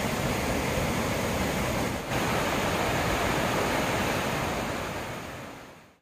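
Mountain stream rushing over granite boulders and small cascades: a steady rush of water with a brief dip about two seconds in, fading out over the last second or so.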